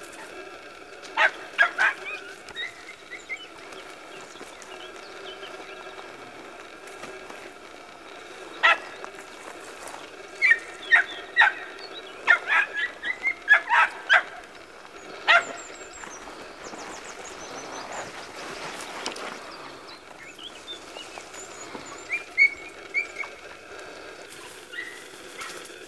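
Podenco Orito hound puppies giving tongue on rabbits: short, sharp yelping barks in irregular bursts, quickest in a run about halfway through.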